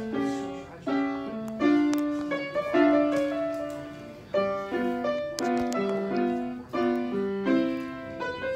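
Background piano music: a melody of single notes over chords, each note struck and fading.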